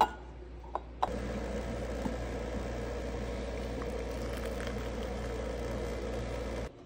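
Water poured from a kettle into a glass mug of fresh mint leaves: a couple of light clicks, then a steady pouring stream starting about a second in.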